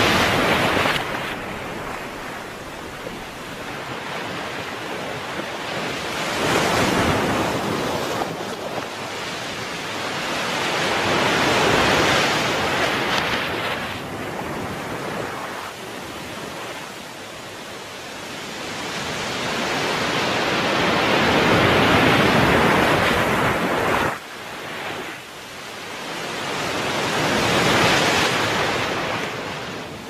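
Small ocean waves breaking and washing up a sandy beach. The surf swells and fades in slow, irregular surges every several seconds.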